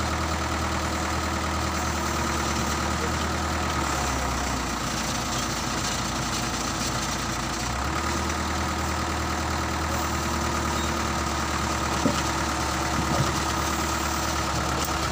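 Diesel engine of a winch hoist running steadily. Its speed drops for about four seconds starting about four seconds in, then picks back up, and there are two short knocks near the end.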